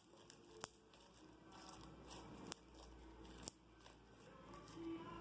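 Near silence: room tone with a few faint, sharp clicks.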